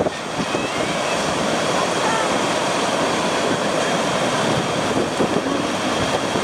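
Surf breaking close by and foam washing up the beach in a steady rush.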